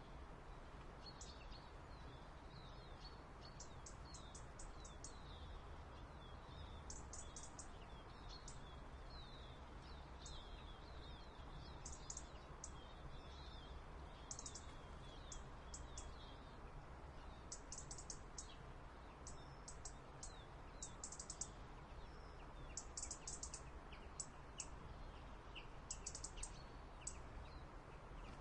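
Small songbirds chirping faintly, with many short high chirps that come in quick clusters of three to five every second or two, over a faint steady low background hum.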